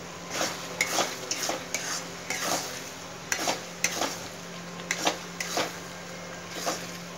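Steel spoon scraping around an iron kadai while stirring thick rice cooked in oil and ghee, in irregular strokes of one to three a second. Underneath, the oil separating from the rice sizzles lightly over a low flame.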